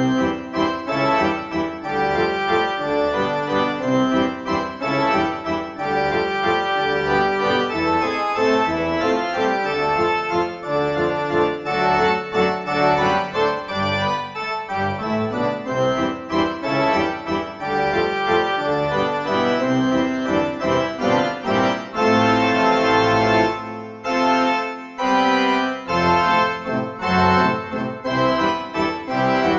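Background music with a quick run of notes, dipping briefly about two-thirds of the way through.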